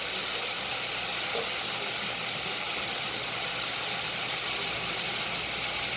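Mustard-battered chicken wings frying in hot oil in a cast-iron skillet, a steady sizzle.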